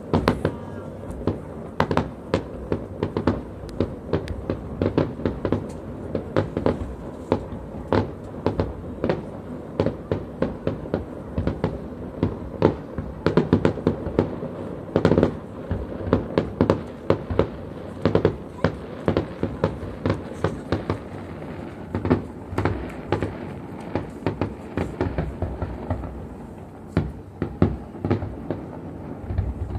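Fireworks display: a continuous, irregular run of sharp bangs and crackles, with a burst of heavier bangs close together around the middle.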